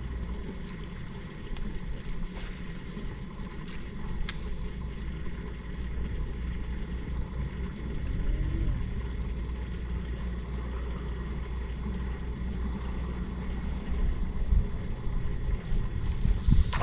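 Steady low rumble of a boat motor running, with a few faint clicks.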